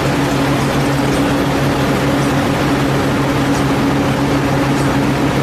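A vehicle engine running steadily close by: a constant low hum over a loud, even rushing noise.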